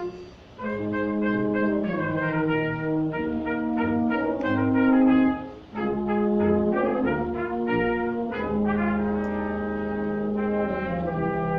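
Concert wind band playing, brass to the fore with trumpets and trombones holding full sustained chords. The music swells to its loudest just before the middle, breaks off for a moment, then carries on.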